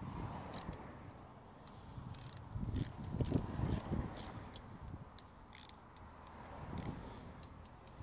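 Scattered metallic clicks and clinks of hand tools, coming in an irregular run about two to four seconds in, as the indicator mounting on the motorbike's front fork is tightened.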